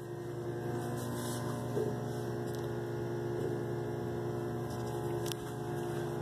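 Steady background hum made of several held low tones, unchanging throughout.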